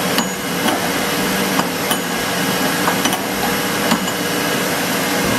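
Light metallic clicks of a wrench on a Swagelok compression-fitting nut as it is turned down toward seating, scattered irregularly over a steady loud background noise.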